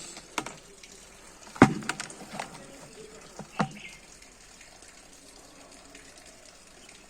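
Several short sharp knocks and clicks, the loudest about one and a half seconds in, over a faint steady hiss that carries on alone for the last few seconds.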